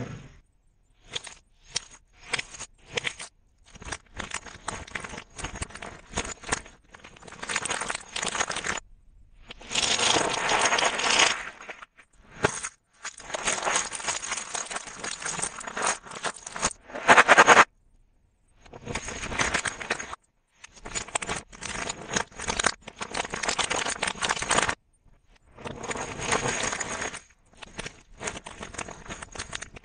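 Candy packaging handled in a string of short bursts that stop abruptly: a cellophane wrapper crinkling as it is pulled off a candy box, and near the end scissors snipping open a plastic candy bag.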